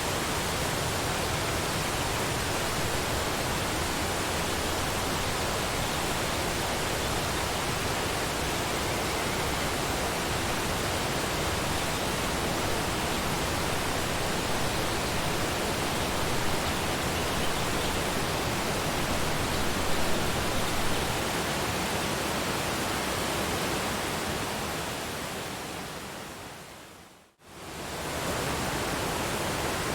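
Waterfall rushing in a steady, even roar of falling water. Near the end it fades down to silence and swells back within about a second, like the seam of a looped recording.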